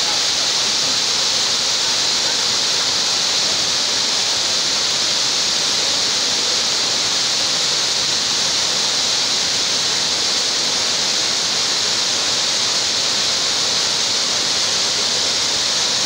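Waterfall pouring from a 15-metre limestone ledge in a wide stream into a deep pool: a steady, even rush of falling water.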